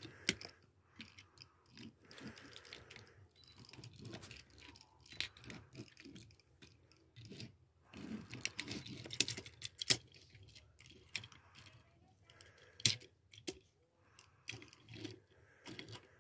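Scattered light clicks and clacks of a die-cast toy dump trailer being handled, its plastic dump bed tipped up near the end, with a few sharper clacks along the way.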